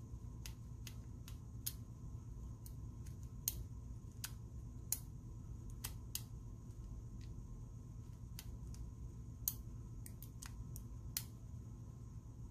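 Trigger and trigger trolley of an open VFC Avalon Version 2 airsoft gearbox clicking as the trigger is worked by hand in the full-auto position: small, sharp, irregular metal clicks, about two a second.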